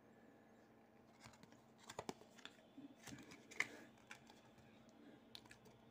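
Faint, scattered clicks and light rustling of cardboard trading cards being handled and slid one behind another in the hands. The strongest click comes about three and a half seconds in.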